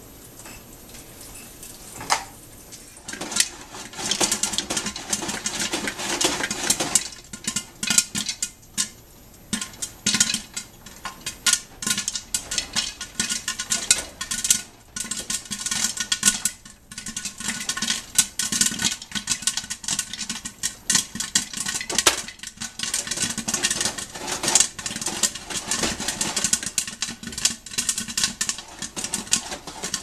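Popcorn popping in hot oil inside a covered stainless steel pot: a few scattered pops about two to three seconds in, then rapid, continuous popping from about four seconds on.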